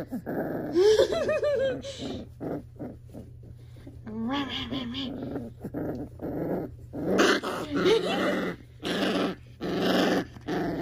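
Young Cane Corso puppy, about five weeks old, growling and crying in a tantrum while being scratched. It gives short wavering cries about a second in and again around four seconds, then a run of rough growls in bursts through the second half: the puppy protesting at the scratching.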